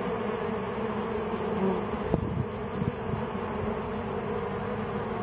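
Honey bees buzzing steadily in an open hive, with a couple of brief louder buzzes about two and three seconds in as bees fly close.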